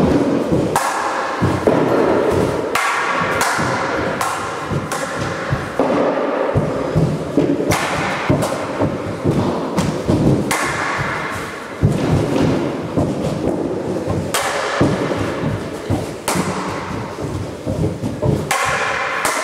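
Staff and stick practice weapons knocking against each other in fast freestyle sparring, with thuds of feet on a plank floor. The knocks come irregularly, several a second, and echo in a large hall.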